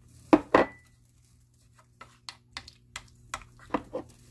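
Two sharp knocks against a pressure cooker's inner pot, the second ringing briefly, then a run of lighter clicks and taps as lumps of homemade doenjang are put in among the pork belly.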